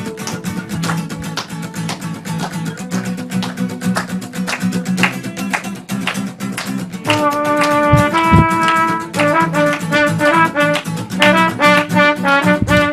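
Instrumental break of a live band song: strummed guitar and bass carry the rhythm, then about seven seconds in a brass horn comes in playing a held melody line over them.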